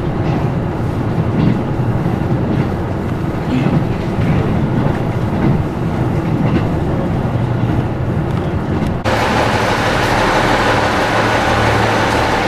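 KiHa 75 diesel railcar running at speed, heard from inside: a heavy low rumble with wheels clicking over rail joints. About nine seconds in it cuts suddenly to station platform noise, a steady hiss with a low hum from a train standing at the platform.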